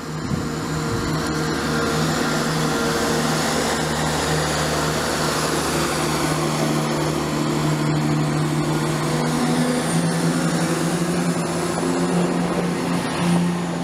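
Class 170 Turbostar diesel multiple unit pulling away under power, its underfloor diesel engines giving a steady drone that grows stronger in the later seconds as the train accelerates away, with wheel and rail noise underneath.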